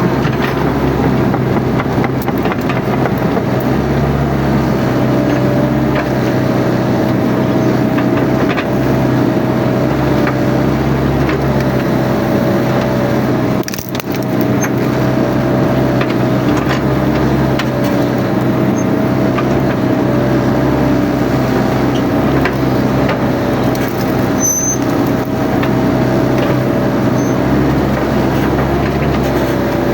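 Mini excavator's diesel engine running steadily with a high, slightly wavering whine from the machine, over scattered cracking and crunching of brush and branches being crushed.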